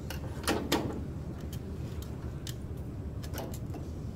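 Small robot-kit parts being handled against a printed circuit board: two short knocks about half a second in, then a few scattered light clicks, over a steady low background hum.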